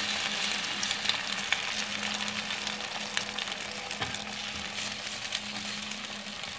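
Omelette batter sizzling in hot oil on a flat griddle (tawa), with light scrapes and taps of a steel spoon spreading it.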